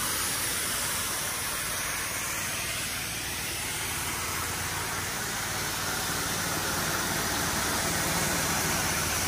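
High-pressure washer spray hissing steadily as a tight fan stream from a multi-nozzle wand is edged along a window sill and siding, flushing out mold, mildew and grime, over a steady low engine hum.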